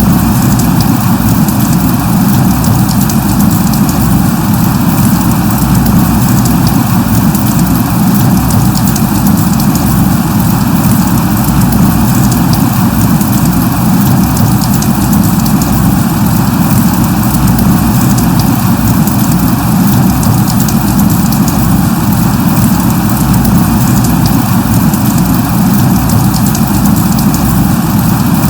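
Steady rain: an even, unbroken hiss with a strong low rumble underneath.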